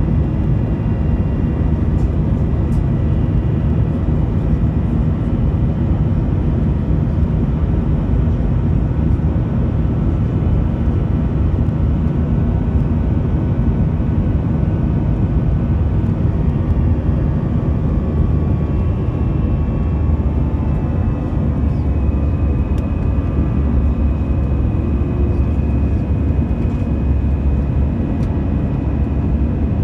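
Airbus A320 cabin noise in flight: a steady, loud jet-engine and airflow rumble, with faint steady whining tones that shift slightly about halfway through.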